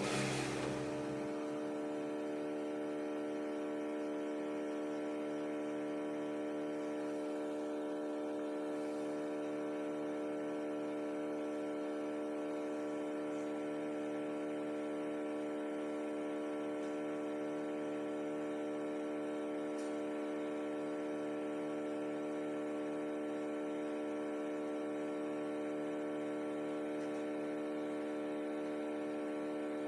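Steady electrical mains hum: a buzzing stack of even tones that does not change, with a short burst of noise at the very start.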